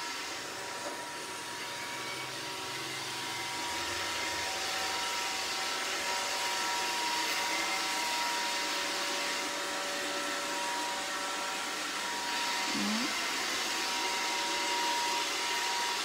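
iRobot Roomba robot vacuum running: a steady, fairly quiet whirr of its suction motor, with a faint steady whine in it.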